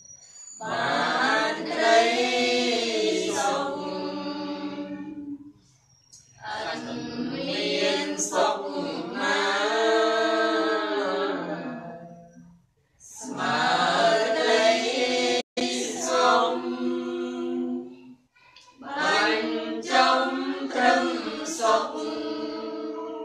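A group of voices chanting Buddhist devotional verses together in a sung, melodic style, in four long phrases with short pauses for breath between them.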